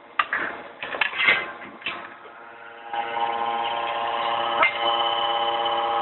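Metal knocks and clanks from handling a steel workpiece at a heating machine. About three seconds in, a steady machine hum with many tones starts, broken by one sharp clank about halfway through.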